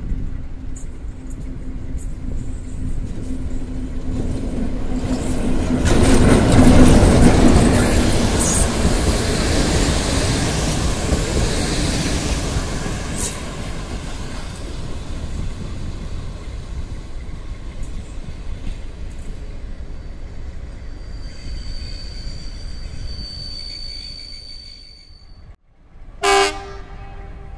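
Romanian CFR class 060-DA Sulzer diesel-electric locomotive hauling a passenger train past at close range: a steady engine note and rumble that grow loudest a few seconds in, then fade as it rolls on. Near the end a thin high squeal, typical of wheels or brakes as the train slows into the station, then a short pitched blast.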